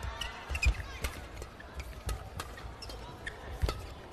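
Badminton doubles rally: rackets striking the shuttlecock with sharp cracks at irregular intervals, the loudest about two-thirds of a second in and near the end, with shoes squeaking on the court floor.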